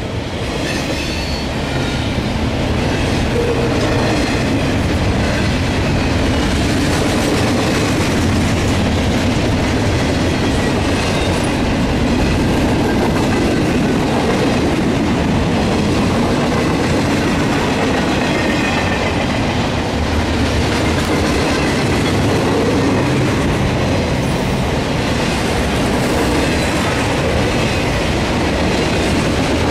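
Double-stack intermodal container well cars rolling past at speed, their steel wheels running steadily on the rails.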